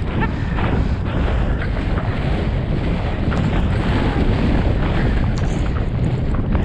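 Steady wind buffeting a helmet-camera microphone as a horse and rider move at speed, with a constant low rumble.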